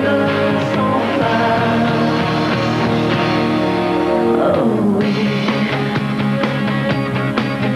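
Rock song played by a band with electric guitars and drums. About four and a half seconds in, one part glides down in pitch before the band settles back into a steady groove.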